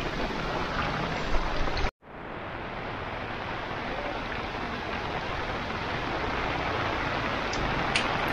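Heavy rain falling steadily, an even hiss. The sound cuts out abruptly about two seconds in, then fades back up and carries on steadily.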